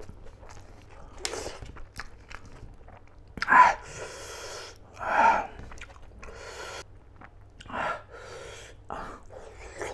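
Close-miked chewing of a mouthful of rice and smoked pork, with wet smacking mouth noises. There are a few short louder mouth sounds, the two strongest about a third and halfway through.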